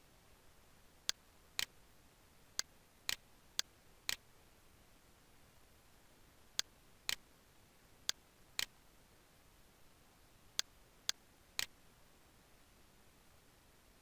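Sharp clicks, mostly in pairs about half a second apart, with a pause of a second or more between groups.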